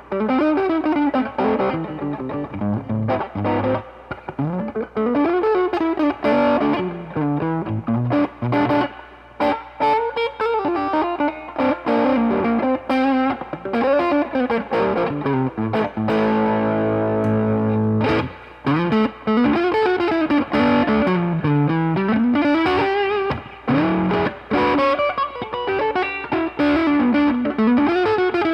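Reverend Pete Anderson PA-1 electric guitar played through a Mesa Boogie 5:25 Express 1x10 combo amp, with a chord held for about two seconds past the middle.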